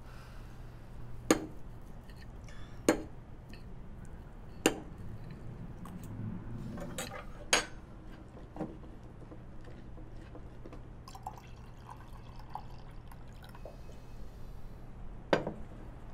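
Knife and fork clinking against dinner plates as steak is cut: several sharp clinks a second or two apart, then a long gap before a last one near the end, over a faint steady low hum.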